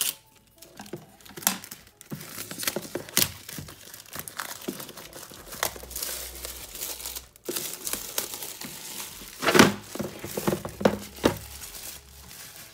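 Plastic shrink wrap being cut and peeled off a cardboard box, crinkling and crackling in irregular bursts, with a short pause about halfway and the loudest crumple about nine and a half seconds in.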